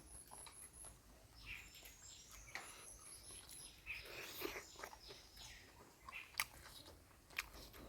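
Faint chewing and mouth sounds of someone eating mutton curry, with a few sharp clicks. A high, rapidly repeated chirping sounds twice in the background.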